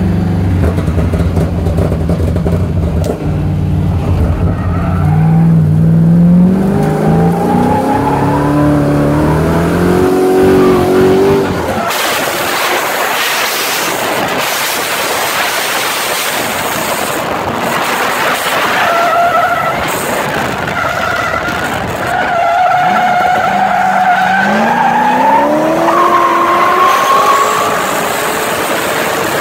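Drift car heard from inside the cabin: the engine note climbs as it accelerates over the first twelve seconds or so. From about twelve seconds in, the tyres skid and squeal through a sustained drift, with the engine note wavering and rising over the tyre noise.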